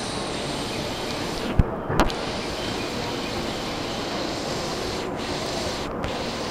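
Steady din of an underground-style station platform with electric trains standing at it, their equipment running. Two short sharp clicks come about one and a half to two seconds in.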